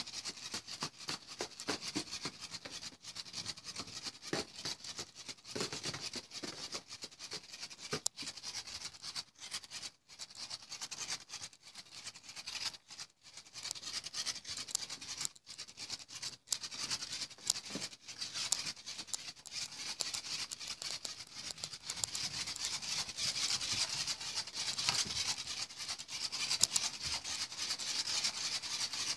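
Continuous scratchy rustling and rubbing, dense with small clicks and scrapes, growing louder over the last several seconds.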